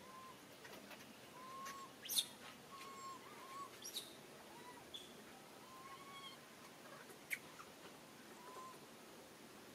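Faint short chirping calls, each a brief rise and fall in pitch, repeating every second or two. Two sharp high clicks stand out, about two seconds and seven seconds in.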